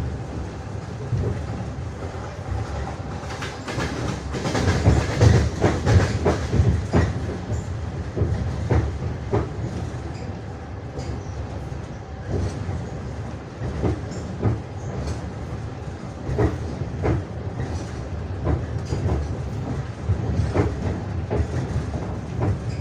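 Passenger train wheels clattering over rail joints at speed: repeated clickety-clack knocks over a steady low rumble of the carriage, the knocks densest and loudest about five seconds in.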